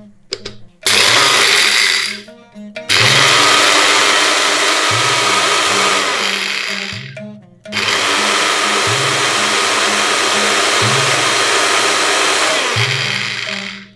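Electric blade spice grinder whirring as it grinds fried sesame seeds and coriander seeds to powder. It runs in three pulses, a short one about a second in and then two longer runs, each winding down as it is let go.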